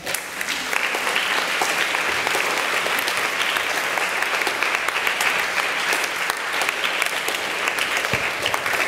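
A crowd of schoolchildren and adults applauding steadily, many hands clapping at once.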